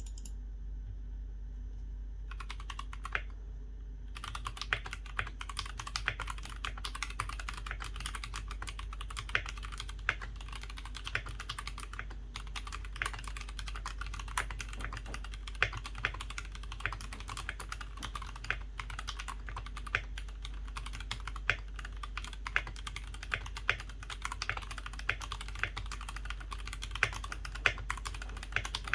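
Typing on a GK68X mechanical keyboard fitted with unlubed stock Gateron Milky Yellow linear switches on an aluminium plate in an acrylic sandwich case. A few separate key presses about two seconds in, then fast continuous typing from about four seconds in, over a steady low hum.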